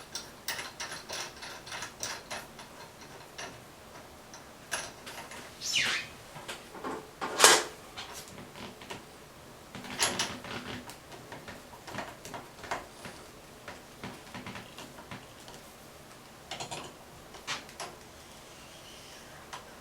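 Metal clicks, taps and scrapes of a Danco cartridge puller being fitted onto a shower cartridge's brass stem, with one sharper knock about seven and a half seconds in.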